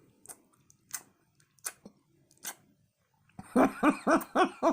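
Scattered chewing clicks and smacks from a person eating a gyro with fake novelty teeth in her mouth. About three and a half seconds in, loud rhythmic laughter starts, short "ha" pulses about five a second.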